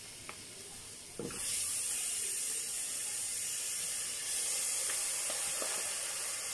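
Raw beef pieces, wet from their bowl, dropping into hot masala in an aluminium pressure cooker and setting off a steady sizzle that starts about a second in and gets louder about four seconds in. A few light knocks are heard along with it.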